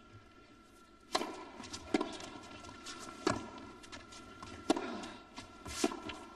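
Tennis ball struck back and forth by racquets in a rally, starting about a second in, a sharp hit roughly every second or so with lighter taps between them. Each hit echoes in an indoor arena.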